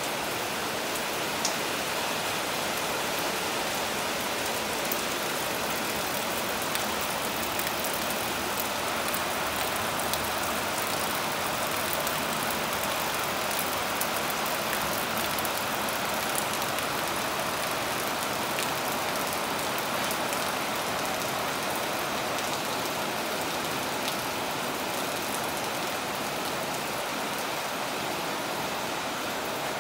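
Heavy rain falling on a corrugated zinc roof: a steady, even hiss of rain with scattered sharper drop ticks.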